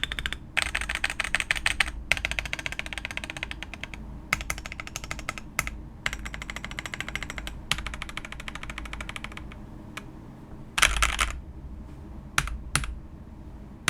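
Typing on a Royal Kludge RK98 mechanical keyboard fitted with Akko Creamy Purple Pro tactile switches, tape-modded. The keystrokes have a mid-range sound, neither thocky nor clacky. Fast runs of key clicks die down about ten seconds in, then come one short flurry and a few single keystrokes near the end.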